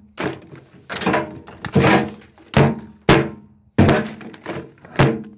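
A hammer striking pots in a metal wheelbarrow: about seven hard blows in a little over five seconds. Each blow is followed by a short ringing tone.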